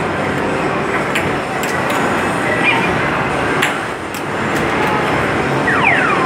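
Arcade game room din: a steady wash of noise from many machines, broken by sharp clicks and knocks and short electronic pings, with two quick falling electronic tones near the end.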